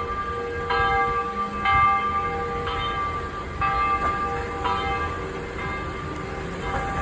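Large church bell swinging and ringing, struck about once a second, each stroke's hum ringing on into the next. The strokes grow fainter in the last couple of seconds.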